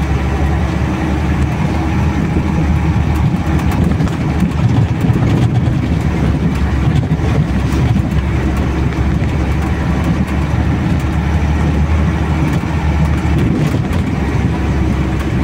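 Water tanker truck's diesel engine running steadily, heard from inside the cab, with scattered small rattles and knocks as it drives over a rough, muddy dirt road.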